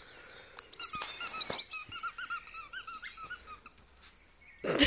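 A squeaky dog toy squeaking in quick runs of short, high squeaks as two dogs tug and bite at it. A person's voice cuts in loudly near the end.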